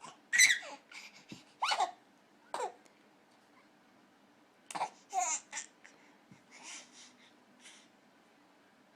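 A baby making a string of short, high-pitched squeals and babbling sounds, each sliding in pitch, with quiet pauses between them.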